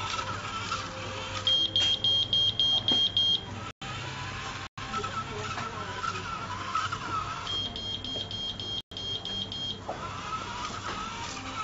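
POP-BOT line-following robot's small gear motors whining steadily as it drives, interrupted twice by a run of about eight quick, high-pitched beeps from its buzzer, the signal that it has detected a crossing line.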